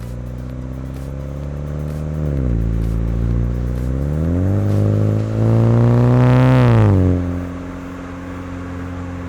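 Exhaust of a MINI John Cooper Works GP3's turbocharged four-cylinder, heard from a microphone at the tow hook while driving in sport mode. The engine pitch dips about two seconds in, then climbs as it accelerates, loudest around six to seven seconds, before dropping sharply and settling to a steady note.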